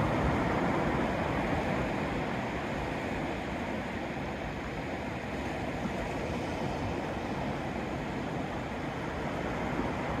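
Ocean surf breaking and washing up the beach: a steady rushing noise that swells and eases gently as the waves come in.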